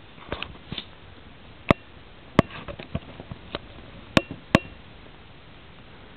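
A series of about eight sharp, irregularly spaced clicks and knocks, a few of them louder with a brief high ring.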